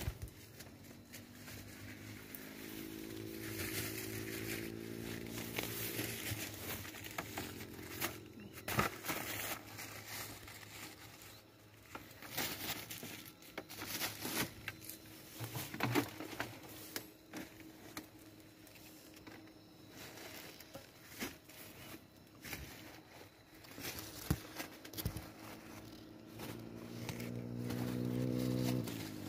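Leaves and twigs rustling and crinkling against the phone as it is pushed through pear tree branches, with irregular handling knocks and clicks.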